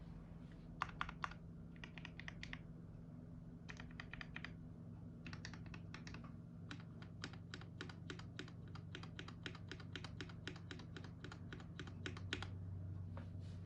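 Typing on a KBD67 Lite R2 mechanical keyboard with Gateron Black linear switches. A few short bursts of keystrokes give way, about six seconds in, to steady typing at about five keys a second, over a faint low hum.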